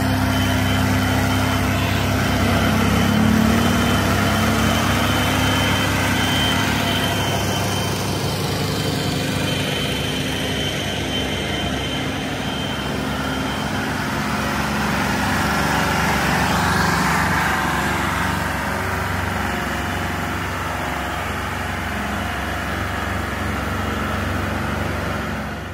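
Farm tractor diesel engines running hard under load, hauling heavily loaded sugarcane trailers past; one engine rises in pitch a few seconds in, and the sound swells again midway as another rig goes by.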